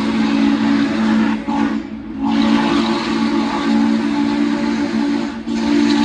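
Norfolk & Western J-class 611 steam locomotive's chime whistle blowing long, loud blasts, a steady low chord, broken by a short pause about two seconds in and a brief dip near the end. A hiss of steam runs underneath.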